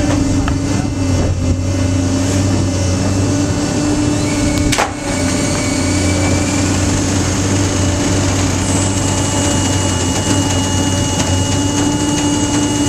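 Mill size cardboard baler running, a steady machine hum from its motor and hydraulic pump, with one sharp click about five seconds in.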